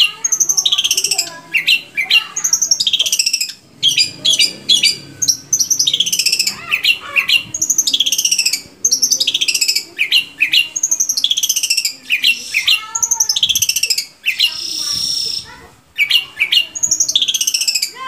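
Long-tailed shrike (cendet) singing, a fast, continuous run of high chattering phrases that each sweep downward, broken by a harsh rasping note about three seconds before the end.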